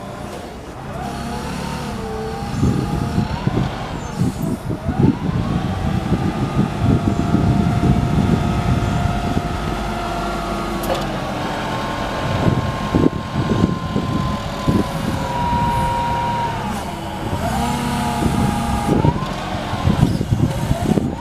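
2000 Yale GLP065 LPG forklift's engine running while the truck is operated, its speed rising and falling repeatedly, with a whine whose pitch follows the engine speed.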